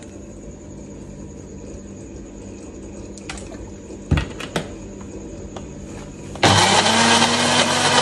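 A few knocks, then about six and a half seconds in a ProBlend countertop blender switches on and runs loudly, its motor spinning up and holding speed as it grinds a wet spice paste of chillies, garlic and spices with cooking oil added because the mix was too dry.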